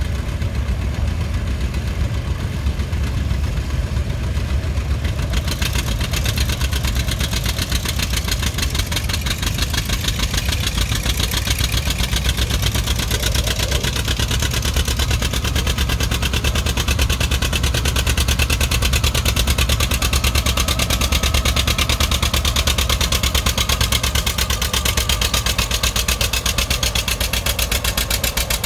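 Vintage John Deere two-cylinder tractor engine working under load as it pulls a weight-transfer sled, its exhaust beating in a rapid, even rhythm. The exhaust note grows stronger and fuller about five seconds in and stays strong as the pull goes on.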